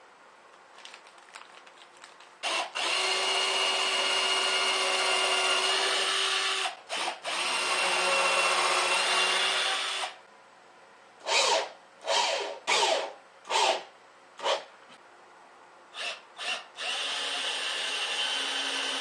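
Cordless drill/driver driving 3/4-inch wood screws into the board. Two long steady runs of the motor, then a string of short trigger bursts, then another long run near the end.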